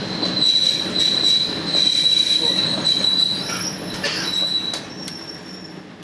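KiHa 47 diesel railcar's wheels squealing as it runs: a steady high-pitched squeal for about three seconds, then shorter squeals over the low rumble of the running train, with a few sharp clicks near the end as the sound fades.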